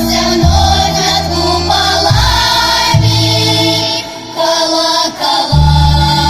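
A Russian folk song ensemble's choir singing in sustained held notes, over a steady low instrumental accompaniment. The sound dips briefly twice, about four and five seconds in.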